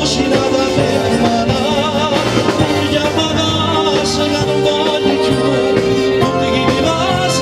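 Live band playing a song: a male singer singing through a microphone over keyboard, bass guitar and drums, with a steady beat.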